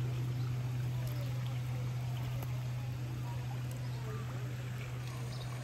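Steady rush of running water over a constant low hum, with no break or change.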